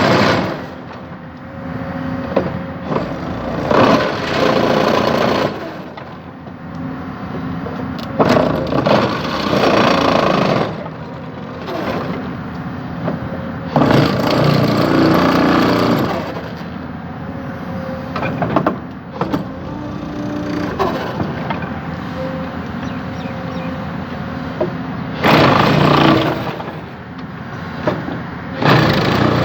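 Excavator diesel engine running steadily, surging louder five times for a second or two as the hydraulics take load while it compacts the sub-base, with a few sharp knocks between.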